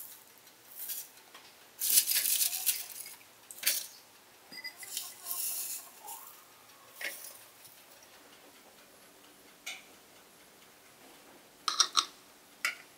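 Dried herbs rustling and crackling as a hand picks them out of a clay bowl, with a few small taps. Near the end, a metal spoon clinks against a small metal saucer: a quick run of three clinks, then one more.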